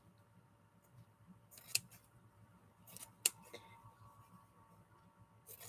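Scissors snipping through silk flower petals, cutting them into thinner strips: a few separate quiet snips, the loudest a little past three seconds in.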